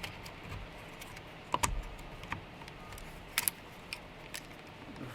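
Scattered sharp plastic clicks and knocks, about five or six, as the spool cap is pushed and lined up onto the string trimmer head.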